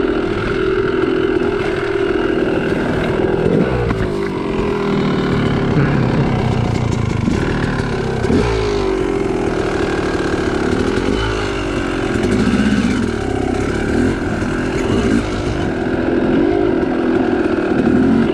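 Yamaha YZ250 two-stroke dirt bike engine under way on a trail. Its revs climb and drop again and again as the throttle is worked and gears change.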